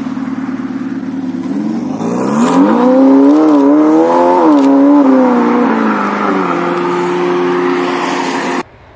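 Ferrari 488 Pista's twin-turbo V8 pulling away: a steady low note, then revs climbing about two seconds in, loudest a few seconds later, before easing back to a steady lower note as the car drives off. The sound cuts off suddenly near the end.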